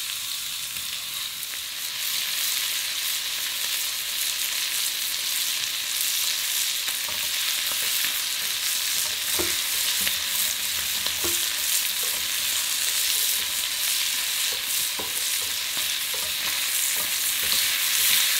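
Strips of lamb breast sizzling in a hot, dry stainless-steel frying pan as their fat renders out, a steady frying hiss that grows a little louder about two seconds in, with scattered small pops of spattering fat.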